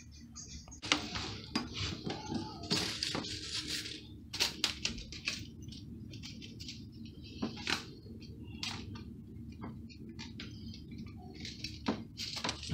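Metal hand tools and fittings being handled off-camera: irregular clinks, clatter and short scraping sounds.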